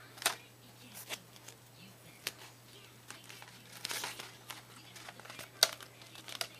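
A rolled paper tube and a glossy yellow wrapping being handled and wrapped around it: crinkling and rustling with a few sharp clicks, the longest crinkle about four seconds in.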